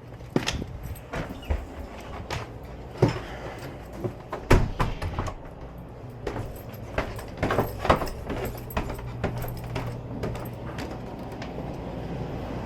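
Irregular knocks, clicks and clatter of tools and furnace parts being handled, over the steady low hum of a gas furnace running.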